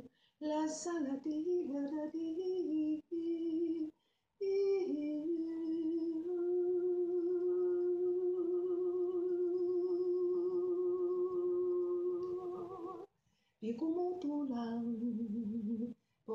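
A woman singing without words: a few short notes that step up and down, then one long held note from about five seconds in to about thirteen, with short breaks for breath between phrases.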